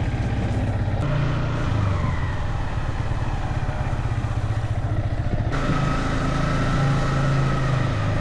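Yamaha XSR155's single-cylinder engine running through its stock exhaust on the move, its note shifting a little about a second in and again around five and a half seconds in.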